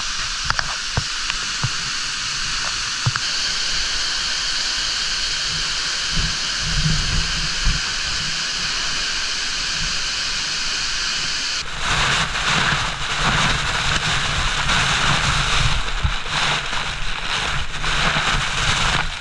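Rushing water of a canyon stream and waterfall, a steady hiss. About twelve seconds in it cuts abruptly to a louder, rougher rush.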